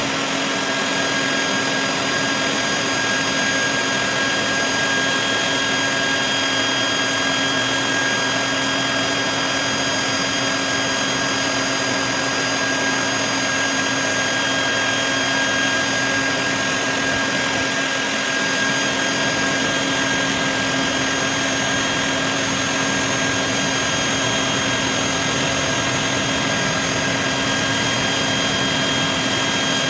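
High-powered leaf blower running flat out, a loud, steady rush of air with a constant whine over it, blasting at better than 100 miles per hour.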